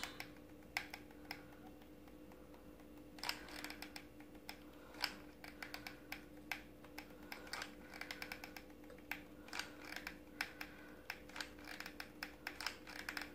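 Faint, irregular light clicks and taps as a hot glue gun is squeezed and its nozzle worked along the rim of a copper piece turned in the hand, laying a bead of glue; the clicking picks up about three seconds in. A faint steady hum lies underneath.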